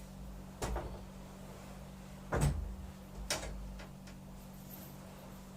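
A few separate knocks and clunks of equipment being handled and set down while it is got ready. The loudest comes a little past the middle, over a steady low hum.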